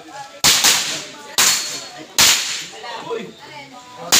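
Handgun shots: a quick pair about half a second in, two single shots roughly a second apart after it, and another just before the end, each trailing off in a brief echo.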